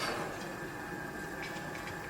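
Construction-site ambience: a steady machinery hum with faint held tones, and a few small metallic clicks about a second and a half in.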